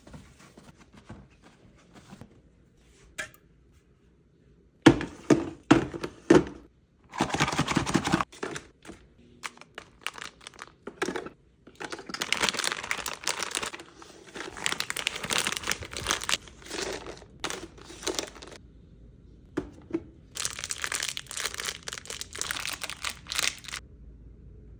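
Plastic packaging crinkling and tearing in several long bursts, with a few sharp knocks early on, as items are unpacked.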